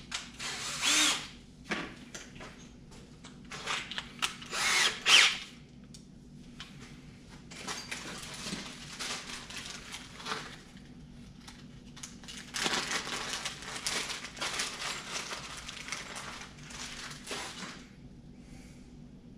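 Power drill running in short bursts with a whine, about a second in and again around four to five seconds in, followed by quieter handling noise.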